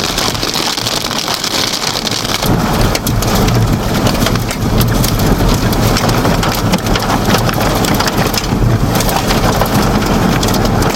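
Heavy rain and hail pelting a vehicle's roof and windows: a dense clatter of many small hits that grows louder about two and a half seconds in, over a low rumble.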